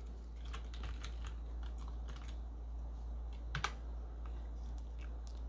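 Typing on a computer keyboard: a scattering of light key clicks, with one louder keystroke about three and a half seconds in, over a steady low hum.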